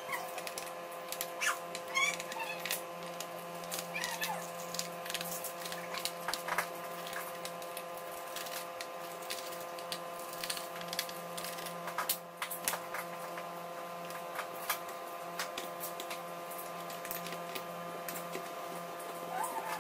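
A small screwdriver clicking and scraping as screws are backed out of a laptop's bottom case, with a few short squeaks in the first seconds. A steady hum runs underneath.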